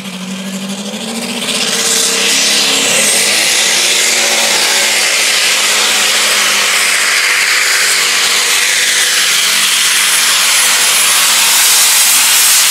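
Modified-class pulling tractor's engine revving up from idle about a second in, then running flat out under the load of the pull. The sound is loud and steady, with a high whine rising above it.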